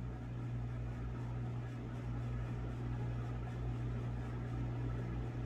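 Steady low hum with a faint even hiss underneath: the room's background noise, with nothing else happening.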